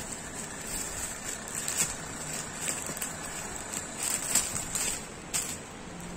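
Clear plastic packaging crinkling by hand in several short bursts as a folded saree is slid out of its bag.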